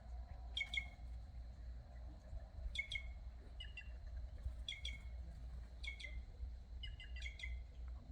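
Quem-quem birds calling: short, sharp double notes repeated every one to two seconds, with a quicker cluster of calls near the end, over a steady low hum.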